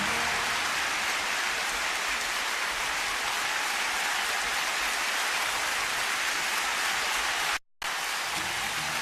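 Concert crowd applauding and cheering as a steady, even wash of noise, broken by a split-second dropout near the end.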